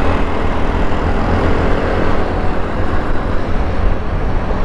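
Steady low rumble of wind and road noise while riding a TVS scooter through city traffic.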